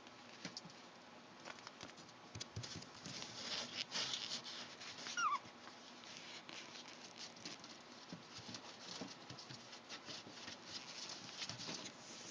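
Puppies shuffling and scratching with faint clicks and scuffles, and one short high squeak that falls in pitch about five seconds in.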